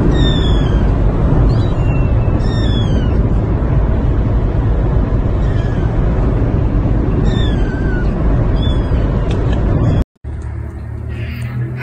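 A ginger kitten meowing about five times, short high cries that fall in pitch, over the loud steady rumble of a car cabin.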